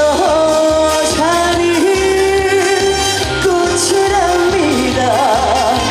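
Korean trot song performed live: singing over backing music with a steady, even beat. Long notes are held, and one wavers with vibrato near the end.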